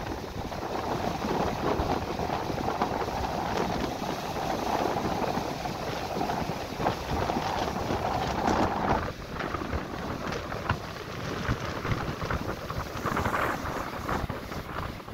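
Ocean surf breaking and washing up a sandy beach, a steady rush of churning foam, with wind buffeting the microphone.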